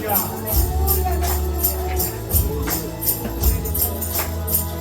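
Live worship band playing an instrumental passage of the song, with a steady bass line, a melody line and a regular beat of bright, high percussion.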